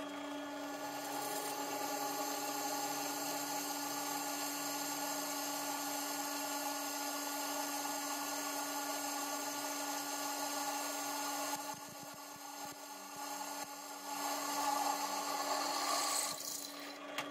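JIB DP15VL floor drill press running at 600 rpm as a 10 mm twist drill cuts through a 20 mm metal square bar: a steady motor hum with the scraping of the cut. It holds its speed without bogging down. The cutting eases off for a couple of seconds past the middle, picks up again, and stops just before the end.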